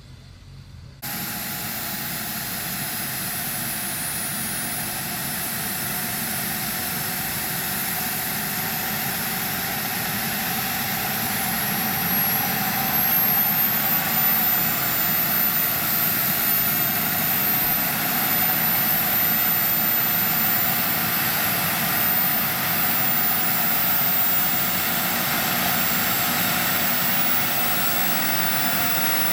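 JetCat PHT3 turboshaft turbine of a quarter-scale RC helicopter running on the ground with the main rotor turning slowly. A steady rushing whine comes in suddenly about a second in, with a thin high whistle that climbs in pitch about twelve seconds in and then holds.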